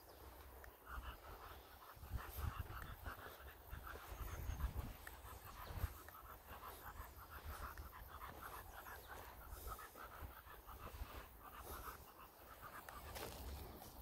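English bulldog panting quickly and faintly, about four to five breaths a second.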